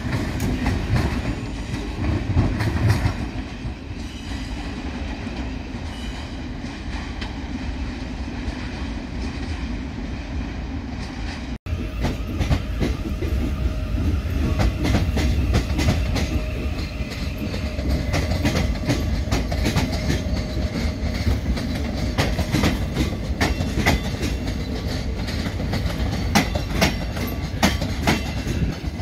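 Thameslink Class 700 electric trains running through station pointwork: a steady low rumble with the wheels clacking over rail joints and points. The clacks come thicker in the second half, and the sound drops out for an instant about a third of the way in.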